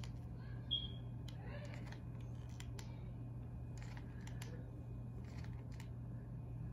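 Faint scattered clicks and light rustles from handling a mini hot glue gun and a cardboard panel while glue is laid along the cardboard edge, over a steady low hum; a brief high squeak about a second in.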